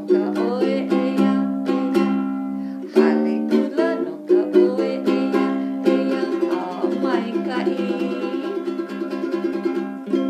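Ukulele strummed in a steady run of chords, with a woman's voice singing along in places.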